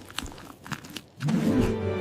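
A few crunchy bite and chewing sound effects, then loud music comes in a little over a second in.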